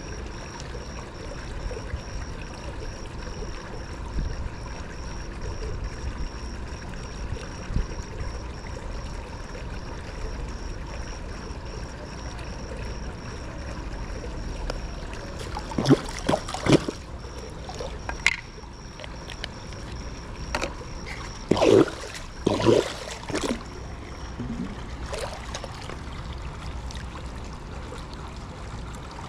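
Pool water running and trickling steadily, with a faint high whine underneath. A few short, louder splashes or knocks a little past halfway and a cluster more about three quarters of the way through.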